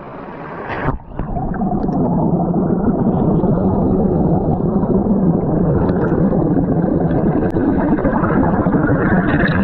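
Water pouring over a small weir, heard with the camera submerged in the plunge pool: a loud, dull, steady churning rush with the high hiss cut away. It starts about a second in, as the camera goes under the surface.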